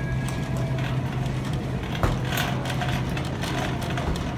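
Supermarket ambience: a steady low hum with scattered light clicks and rattles, the sharpest about two seconds in.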